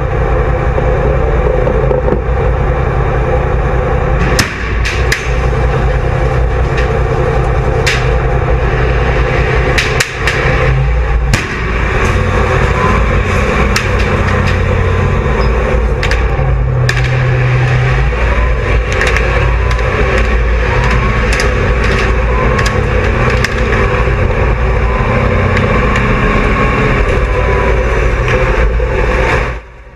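A tank's engine running loud and steady, heard up close from a camera mounted on the tank itself, with sharp cracks standing out a handful of times between about four and seventeen seconds in.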